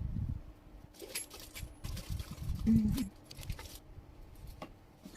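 Small sewing machine accessories being handled: light clinks, rustles and knocks in short irregular bursts.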